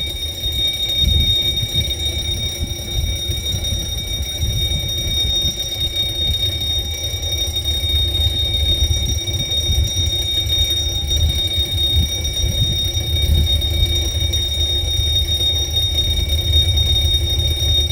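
Freight train of empty container flat wagons rolling past with a steady low rumble, and a constant high-pitched squeal over it.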